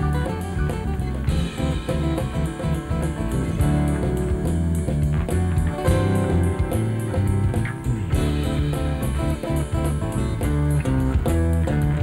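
A band playing live without singing: acoustic guitars strummed and picked over keyboard, bass and a drum kit keeping a steady beat.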